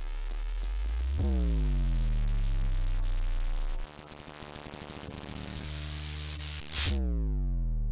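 Synthesized cinematic logo-intro sound design: a deep bass drone under a wash of hiss. A heavy hit comes about a second in, its pitch falling away; a pulsing stretch follows in the middle, then a second falling-pitch hit near the end rings out.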